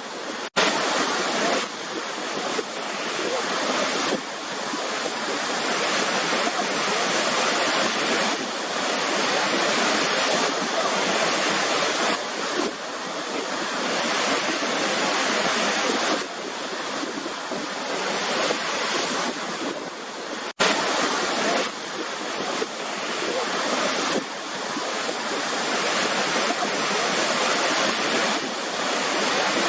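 Waterfall: a continuous rush of falling water that swells slowly and eases back every several seconds. It cuts out for an instant twice, once just after the start and once about two-thirds of the way through.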